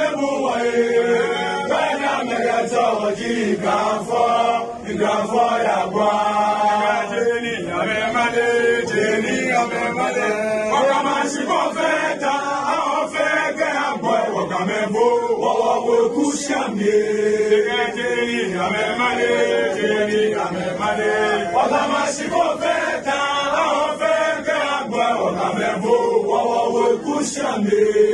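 A group of men chanting together, a Ga kpaashimo chant of the Homowo festival, the voices overlapping in a drawn-out, wavering song with no break.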